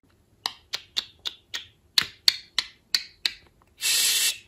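Budgerigar making a rapid run of sharp beak clicks, about four a second, then a short harsh hissing sound near the end.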